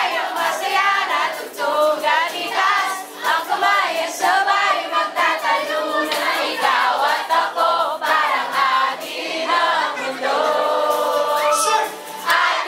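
A crowd singing along together, many voices carrying a song at once.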